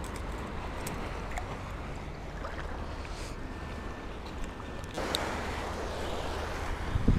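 Seawater sloshing and wind rumbling on the microphone, with a few small metal clicks from fishing pliers working on a minnow lure's treble hooks. About five seconds in the water splashing grows louder, and a knock comes near the end.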